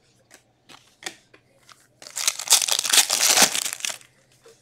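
Wrapper of a hockey card pack being torn open and crinkled: a dense rustle starting about two seconds in and lasting some two seconds, after a few light clicks.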